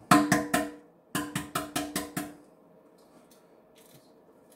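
Hard-boiled egg knocked against a stainless steel sink to crack its shell: about four quick taps, a short pause, then about six more, each with a brief metallic ring from the sink. Faint crackles follow as the shell is peeled.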